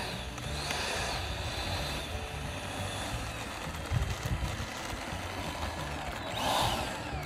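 Electric ducted fans of a twin 64 mm RC MiG-29 model jet whining, the pitch rising and falling, with a louder swell near the end. A steady low rumble of wind on the microphone runs underneath.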